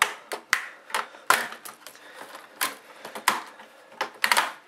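Plastic retaining clips under an HP G50 laptop's bezel popping loose as the bezel is pried off, a run of sharp snaps and clicks at irregular spacing.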